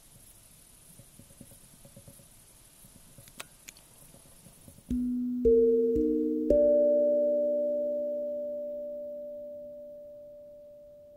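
Faint background hiss, then about five seconds in four notes struck in quick succession on a sound nest drum, a tuned metal hand drum. The notes ring on together and slowly fade away.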